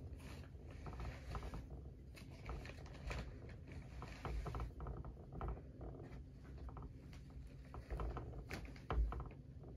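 Irregular small clicks and scratching as a long-haired hamster shifts about inside a clear plastic exercise wheel lying on its side, the wheel knocking and turning on its mount under her; one louder knock about nine seconds in.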